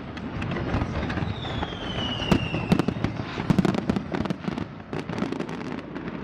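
Fireworks going off in a rapid, irregular series of bangs and crackles, with one whistling rocket that falls in pitch for about a second and a half, starting just over a second in.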